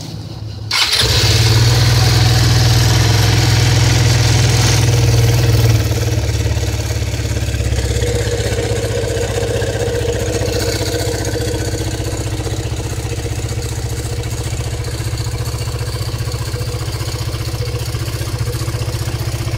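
GT150 scooter's engine and CVT drive running, with an abnormal noise from the transmission at 28,000 km. It jumps up sharply about a second in, stays loudest for several seconds, then settles to steady running.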